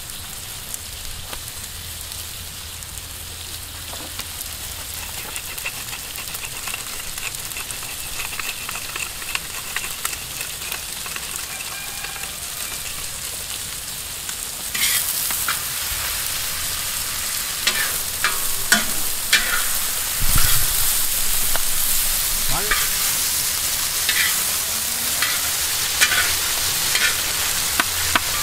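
Fajitas sizzling in a hot pan, a steady frying hiss. From about halfway the sizzle grows louder and a utensil stirs them, with repeated clicks and scrapes against the pan.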